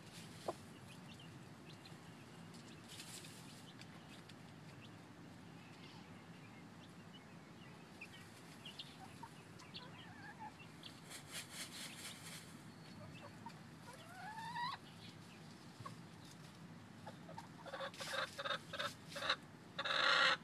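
Chickens clucking: mostly quiet, with faint rustling and a short rising call partway through, then a run of loud, rapid clucks over the last few seconds.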